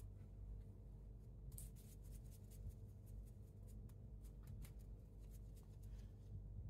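A cat playing with a feather toy on a tiled floor: faint scratchy rustles and light clicks of the toy and paws on the tiles, clustered between about one and a half and five seconds in, over a faint low steady hum.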